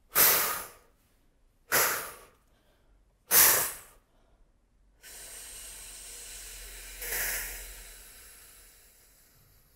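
A woman's breathing exercise for singers: three short, sharp breaths about a second and a half apart, then a long, steady hissed exhalation, the air pushed out slowly against resistance, swelling briefly and then fading out.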